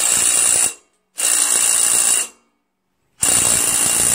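Cordless impact driver hammering a bolt in, in three bursts with short pauses between.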